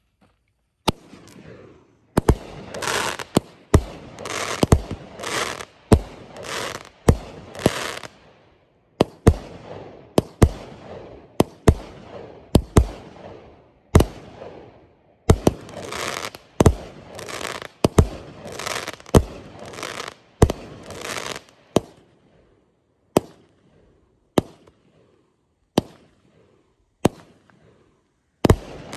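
A consumer fireworks cake firing a rapid string of aerial shots: each a sharp launch thump followed by the bang and crackle of the burst overhead, about two shots a second. After about 22 seconds the shots thin out to single, weaker pops about a second apart.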